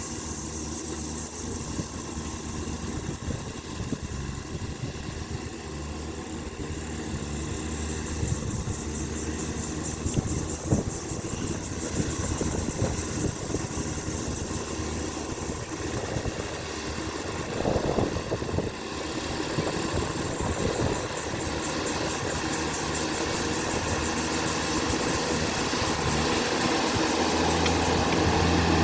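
JCB backhoe loader's diesel engine running steadily while it works, with a few short knocks, and growing louder over the last few seconds.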